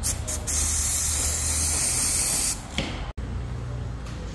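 Aerosol spray can sprayed onto a rag: two short squirts, then a steady hiss of about two seconds, and one more short squirt.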